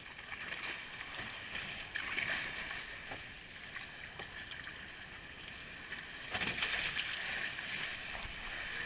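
Water rushing and splashing against the hulls of a Prindle 16 catamaran sailing through choppy breaking waves, with two louder surges of spray, about two seconds in and again around six and a half seconds.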